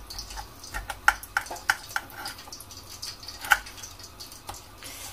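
Metal fork and serving utensil clinking and scraping against a glass baking dish as baked pork ribs are lifted out. A series of sharp clinks, the loudest about a second in and again past the three-second mark.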